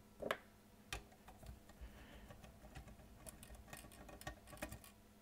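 Faint scattered clicks and ticks of a small screwdriver and plastic pry picks working the plastic retaining clips of a Delco car radio's front faceplate on its metal case. Two sharper clicks come in the first second, and the ticks come thicker in the second half.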